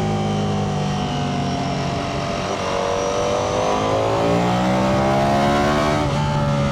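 Ducati Panigale V4 sportbike engine under way: its pitch eases slightly for a couple of seconds, then climbs steadily as the bike accelerates, dropping sharply about six seconds in at a gear change.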